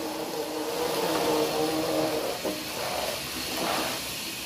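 Small electric motor of a remote-controlled toy train running with a steady whine, with a short knock about two and a half seconds in.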